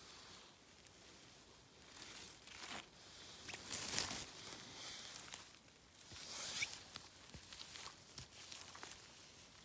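Rustling and tearing of moss and undergrowth being handled and pulled while picking forest mushrooms, in a few short bursts, loudest about four seconds in.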